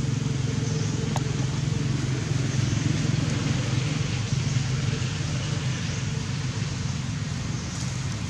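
An engine running steadily, a low even rumble.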